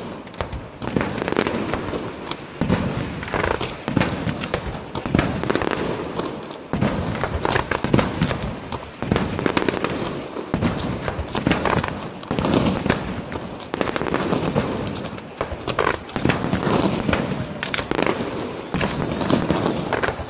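Aerial firework shells from a Setti Fireworks display bursting in a dense, continuous barrage: bang after bang in quick succession, several a second at times, with no real let-up.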